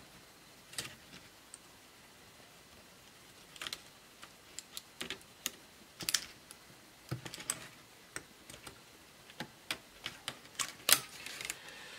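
Scattered small clicks and taps of plastic laptop parts and cable connectors being handled and unplugged during disassembly, irregularly spaced, the loudest near the end.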